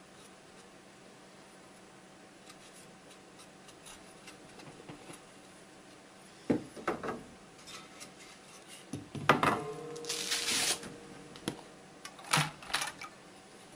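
Wooden beehive frames and a beeswax foundation sheet being handled on a wooden board: a few sharp knocks and clatters starting about halfway through, and a brief scraping rustle about ten seconds in. Under it runs a faint steady hum.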